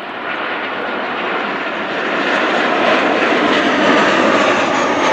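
Jet airliner's engines, a steady rushing noise that grows gradually louder.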